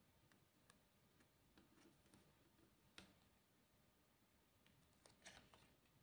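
Near silence with faint paper handling: soft rustles and ticks from a paper sticker piece being handled over a paper plate, with one sharper tick about halfway and a short cluster of rustles near the end.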